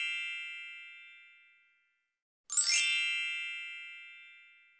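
A bright, high-pitched bell struck twice, each stroke ringing out and slowly fading. The first rings on from a stroke just before and dies away about a second in. The second is struck about two and a half seconds in and fades over about two seconds.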